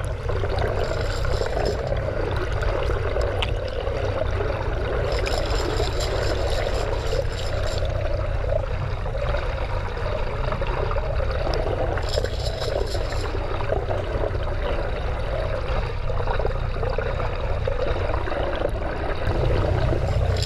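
Muffled rush and bubbling of water heard through an underwater camera, over a steady low rumble.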